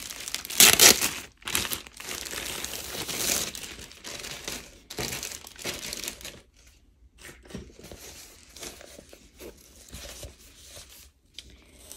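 Plastic wrapping crinkling and rustling as a rolled diamond-painting canvas is handled and unwrapped. It is loudest in the first few seconds and thins to lighter, scattered crackles in the second half.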